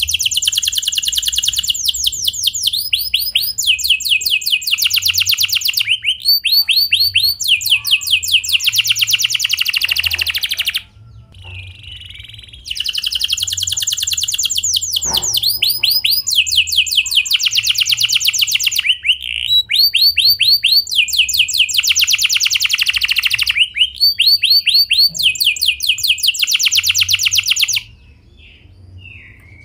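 Domestic canary singing long rolling trills of rapid repeated notes, switching pitch from phrase to phrase every second or two. The song breaks off briefly about a third of the way through and again near the end.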